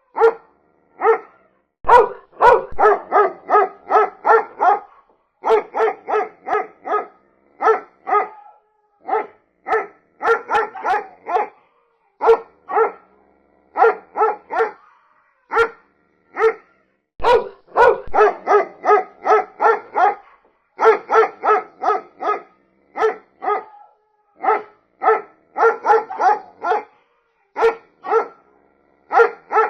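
A dog barking over and over in quick runs of several barks, about three or four a second, separated by short pauses.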